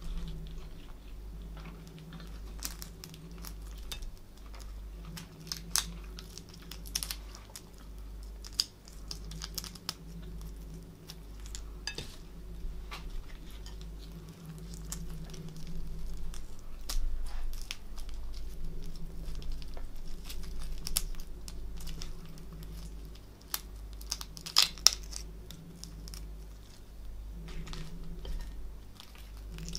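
Boiled prawn shells cracking and tearing as they are peeled by hand: a run of irregular crackles and small clicks, with louder clusters near a quarter of the way in and again about 25 seconds in. A steady low hum runs underneath.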